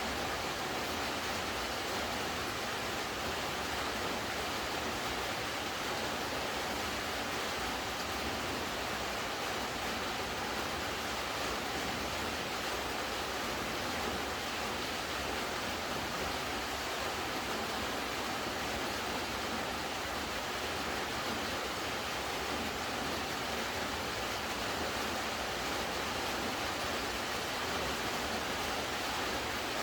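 Steady rainfall, an even hiss of falling water that holds constant throughout.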